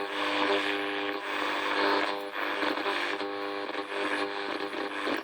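Static hiss with a steady buzzing hum from the Sanyo TPM2140's small speaker, tuned to the AM band where no station comes in, only noise.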